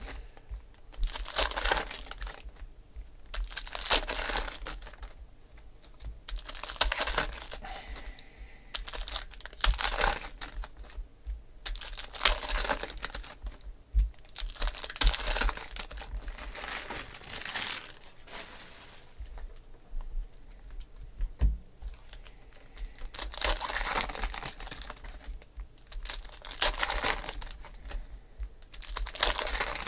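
Foil wrappers of football card packs crinkling and tearing as the packs are opened and the cards handled, in repeated bursts every two to three seconds.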